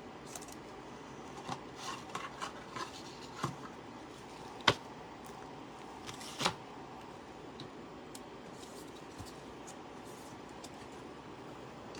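Faint handling noise of trading cards: soft rustles and small clicks, with two sharper taps about four and a half and six and a half seconds in.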